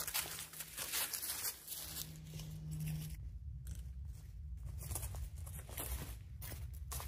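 Footsteps crunching and shuffling through dry fallen leaves, with trekking poles. The crackle is loudest in the first second, thins in the middle and builds again near the end. A faint steady low hum runs underneath for about the first three seconds.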